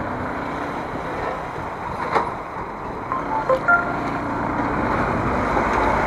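Motorcycle riding in night highway traffic past trucks: a steady rush of wind and road noise over the bike's engine. A few short horn toots come about three to four seconds in.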